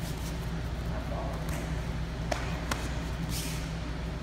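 A handful of short, sharp slaps and taps from gloved punches meeting a partner's covering arms and gloves, with feet shuffling on training mats, over a steady low hum.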